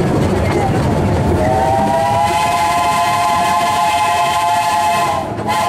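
Steam whistle of the Bagnall 2-4-0 tank engine Sea Lion, a long blast of several notes sounding together, held for about four seconds from a second and a half in, then a brief second toot just before the end. Underneath is the running rumble of the small narrow-gauge train.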